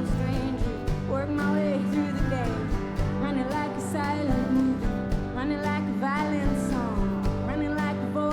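Live band playing country-rock: guitars over steady bass and drums, with a bending melodic line on top.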